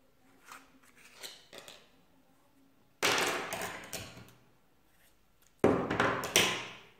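Black vinyl electrical tape being pulled off the roll in long rips, one about three seconds in and two more near the end, with soft rustling of hands handling tape and wires before them.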